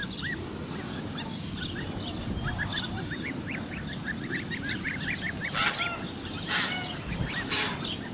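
A flock of young domestic geese and ducks calling. Many high, short peeps carry on throughout, and a few louder calls stand out from about five seconds in.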